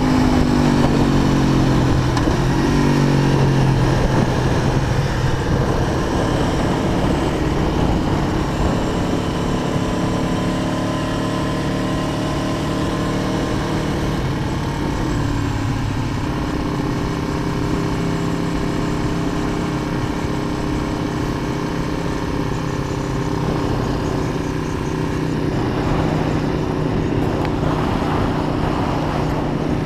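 Aprilia Tuono V4 motorcycle's V4 engine running under way, its note falling over the first few seconds and then holding steady at cruising speed, with wind rumble on the microphone.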